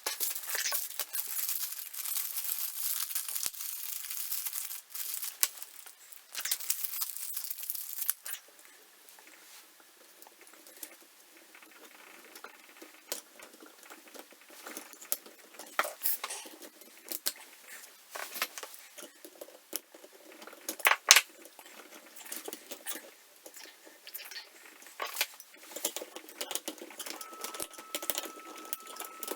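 A harsh, rough hissing in two long stretches over the first eight seconds, then scattered small clicks, taps and rustles of small parts and packaging being handled on a workbench.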